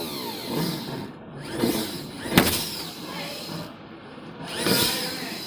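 Rubbing and handling noises in a few swells, with a sharp knock about two and a half seconds in.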